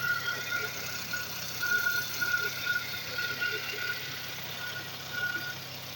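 Rebuilt Skoda Felicia engine running steadily at idle, with a high whine that comes and goes.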